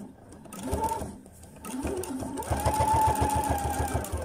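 Pfaff Performance Icon sewing machine stitching through a single layer of shoemaker's leather, its needle thumping evenly several times a second over a motor whine. It starts with a couple of short runs, then runs steadily from about two seconds in.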